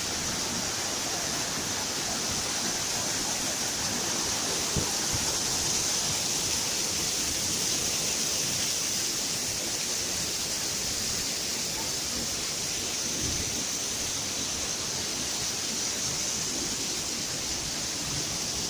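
Several waterfalls pouring close by: a steady, unbroken rush of falling water.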